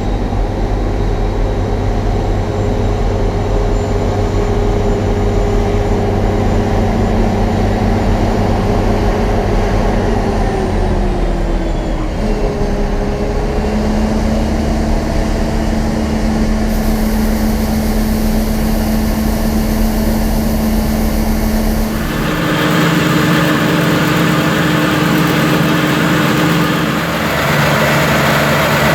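Combine harvester's diesel engine and threshing machinery running steadily under load, the engine note dipping and then rising again about halfway through. About two-thirds of the way in the sound changes abruptly to a louder, hissier machine noise.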